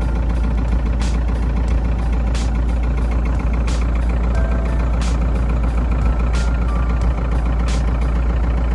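Light airplane's piston engine running steadily at low power, heard from inside the cabin, with a faint regular tick about every second and a half.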